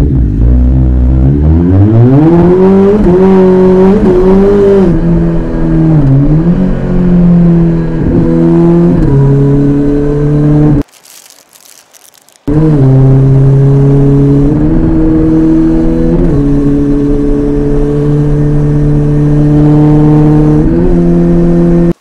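Kawasaki ZX-14R inline-four with an Akrapovic exhaust, revving hard in the first few seconds, then running at high revs with short dips and climbs in pitch as gears change. The sound drops out for a second or two about eleven seconds in, then comes back running steadily.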